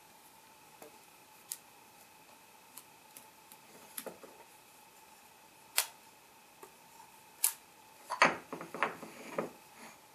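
Rubber bands snapping against a plaster slip-casting mold as they are stretched around it: a few separate sharp snaps, then a quick cluster of knocks and scrapes near the end as the banded mold is handled on the tile tabletop.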